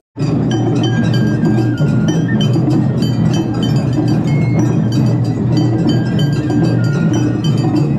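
Japanese festival hayashi music: a high flute playing short held notes over fast, continuous strikes of drums and small metal gongs. The sound cuts in just after a brief dropout at the very start.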